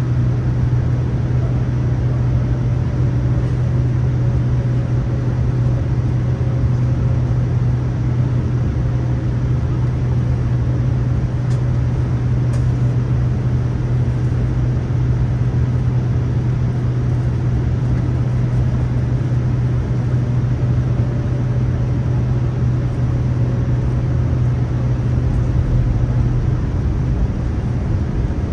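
Cabin noise of a Boeing 787-9 in flight: a steady low hum of the engines under the rush of air, which changes about two seconds before the end.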